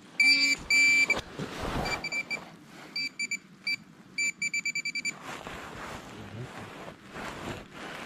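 Handheld metal-detecting pinpointer beeping as it is worked through freshly dug soil to find a lost target. It gives two longer beeps, then short clusters of beeps, then a rapid pulse of about eight beeps a second about halfway through, the sign that it is right on the metal. Soil rustles and scrapes between the beeps.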